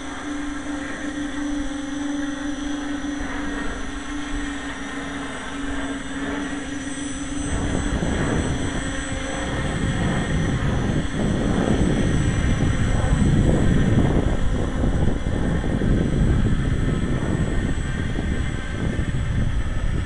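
RC tricopter's motors and propellers giving a steady hum. About seven seconds in, a rough rumble of wind buffeting the microphone sets in, grows louder toward the middle and largely covers the hum.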